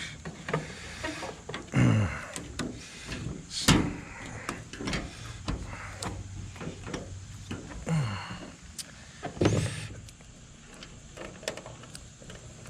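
Plastic tail light housing being worked into its opening on a pickup's bed side, with scattered knocks, clicks and scrapes. There is a sharp knock a little under 4 s in and a few short creaks.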